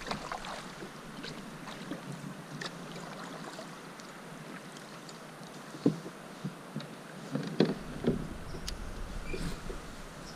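Paddling a plastic sit-on-top fishing kayak: paddle strokes in the water with trickling drips and small clicks. There is a knock of the paddle against the hull about six seconds in, and a few more near eight seconds.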